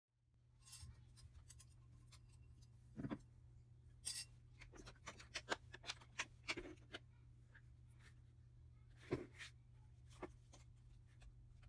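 Faint, scattered clicks and taps of plastic bottles and containers handled on a tabletop, over a steady low hum.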